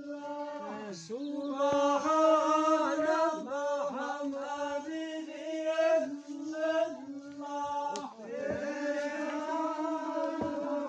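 A single voice chanting a melody in long, wavering held notes, with short breaks between phrases.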